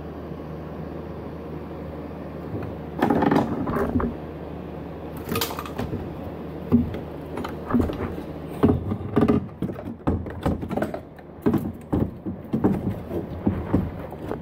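Cast exhaust manifold and turbocharger being worked into place against the engine's cylinder head: irregular metal clanks, knocks and scrapes starting about three seconds in, over a steady low hum.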